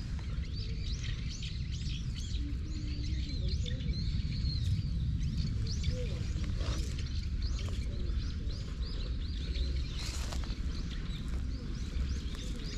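Small birds chirping and singing, many quick rising and falling chirps overlapping, over a steady low rumble.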